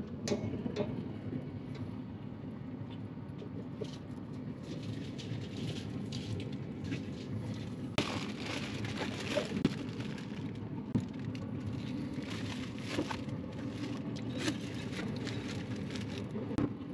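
Aluminium foil crinkling and crackling in short bursts as it is folded and crimped by hand into a boat around a smoked brisket, over a steady rushing background noise.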